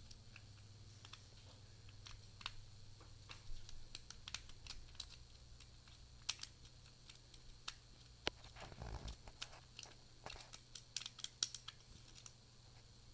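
Lock pick and tension wrench working in a doorknob lock's pin-tumbler cylinder: faint, irregular small metal clicks and ticks as the pins are picked, with a duller knock about two-thirds through.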